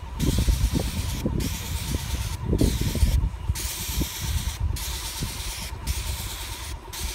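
Airless paint sprayer hissing as it sprays paint onto a corrugated metal roof, the hiss breaking off briefly about once a second. A low rumble runs underneath, with a faint steady whine.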